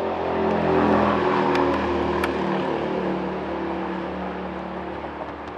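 A car's engine pulling away past, loudest about a second in, then its note sliding down and fading as it moves off.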